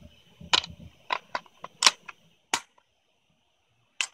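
Handling of an AR-15 rifle and its magazine: a quick, uneven run of sharp metallic clicks and knocks, then a pause and two more clicks near the end.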